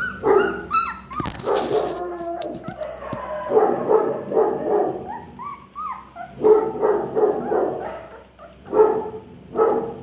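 Doberman puppies yipping and barking in play: many short calls that bend up and down in pitch, coming in clusters throughout. A brief scratchy rustle comes about a second in.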